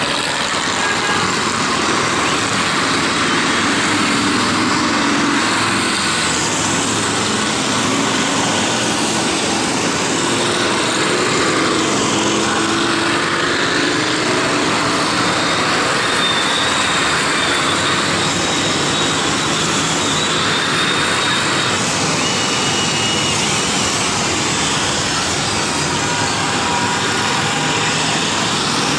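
A long procession of motorcycles riding past in a steady stream, their engines blending into one continuous, loud engine noise.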